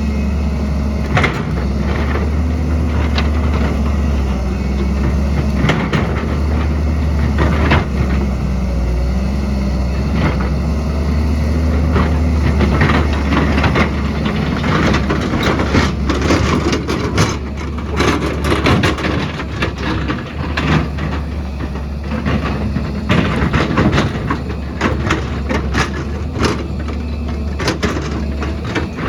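Heavy diesel earthmoving machine running steadily, with scattered sharp clanks and cracks of rock and steel as it digs, coming thicker in the second half.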